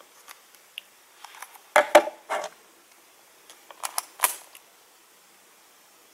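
Small plastic clicks and knocks from handling blood glucose testing supplies, a test strip vial and meter: a cluster of sharp clicks about two seconds in and another about four seconds in, as the meter is set down on the table.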